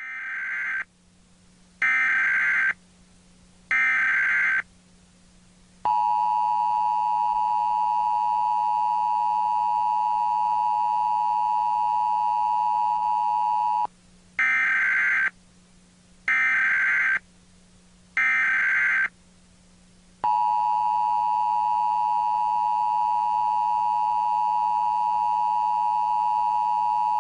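Emergency Alert System test: three short bursts of screeching SAME header data tones, then the two-tone EAS attention signal held steady for about eight seconds. The whole sequence then repeats, with three more header bursts and a second long attention tone. A faint low hum runs underneath throughout.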